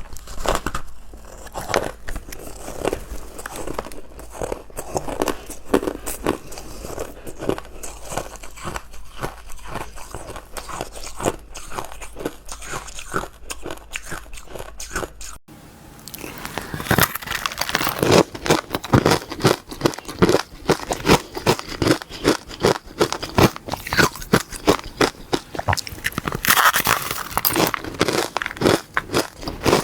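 Close-miked biting and chewing of powdery matcha-dusted ice: many quick, irregular crunches. About halfway through there is a sudden cut, after which the crunching is louder and denser.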